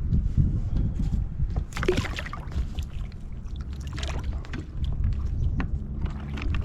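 Handling noise aboard a plastic fishing kayak: scattered small knocks and clicks over a steady low rumble.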